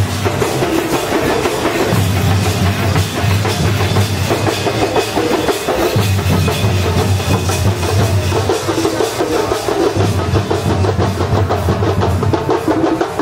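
Loud street-procession percussion: drums beating, with clashing hand cymbals, and a heavy low beat that drops in and out every couple of seconds.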